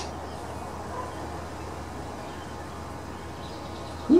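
Steady low background hum with no distinct event. A man's falling exclamation begins right at the very end.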